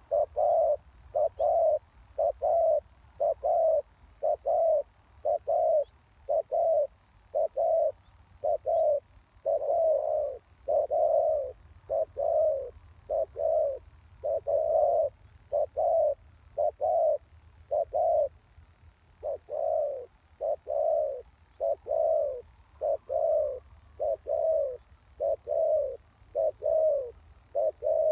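Spotted dove cooing over and over: short low coos at about one or two a second, with a few brief pauses between runs.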